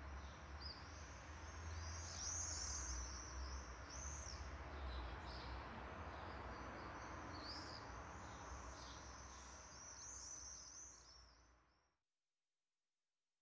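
Faint outdoor ambience of many birds chirping over a low steady rumble, fading out near the end.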